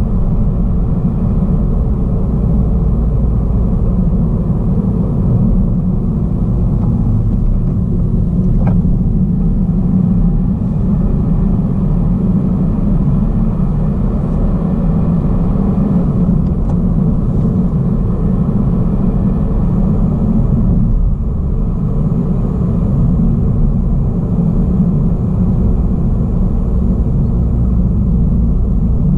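Car driving steadily along a paved road, heard from inside the cabin: a constant low rumble of road and engine noise.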